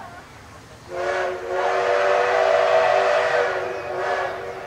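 Steam locomotive whistle sounding a short blast, then a long blast of about three seconds, with several tones sounding together.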